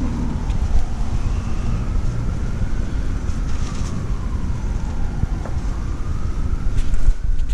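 A siren wailing slowly down and up over a steady low rumble of street traffic.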